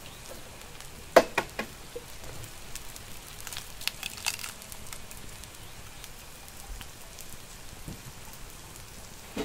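Eggplant mixture sizzling steadily in a black speckled enamel pan over wood embers, as eggs are cracked into it. Sharp shell cracks come about a second in and again about four seconds in.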